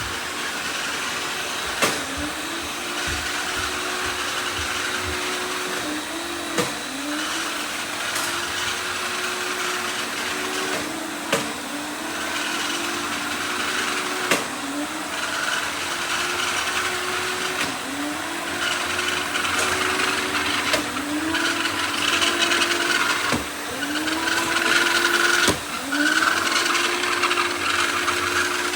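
Several robot vacuums running at once: a steady whir of suction fans and brushes, with a motor tone that glides up and then holds, over and over every few seconds. About half a dozen sharp knocks are scattered through it.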